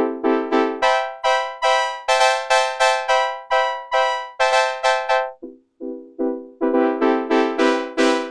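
Korg Polysix analog synthesizer playing a brass patch in a rhythmic run of short, quickly decaying notes, about two to three a second. The line jumps higher about a second in, drops back after a short break about five seconds in, and climbs again near the end.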